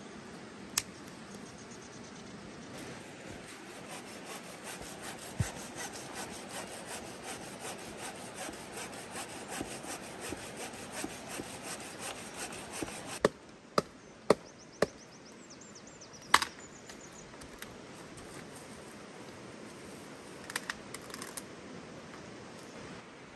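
Hand pruning saw cutting through a thin green branch with a long run of steady back-and-forth strokes, followed by several sharp wooden knocks.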